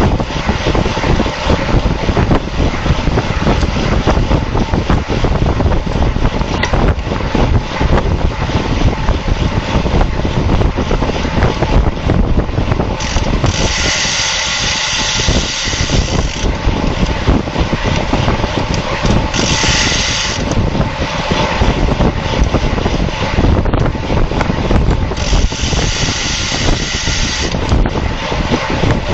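Wind rushing and buffeting over the microphone of a camera mounted on a road bike at racing speed. Three times, about a third of the way in, around two-thirds and near the end, a brighter high hiss rises over it for one to three seconds.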